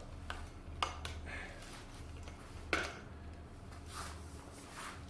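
Handling noises: a handful of short clicks and knocks as the floor pump is left and he steps away, the loudest knock near the middle, over a steady low background hum.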